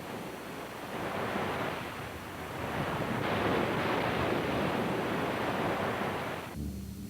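Ocean surf washing in a steady rushing noise that swells up over the first few seconds, then cuts off abruptly near the end.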